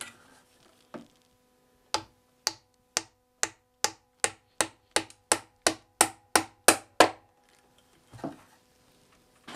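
Wooden mallet driving a glued wooden wedge into the end of a chair-back tenon through the seat: about fifteen sharp knocks, slow at first, then quickening to about three a second and growing louder. The sound changes as the wedge goes in, a sign of it applying pressure that locks the joint.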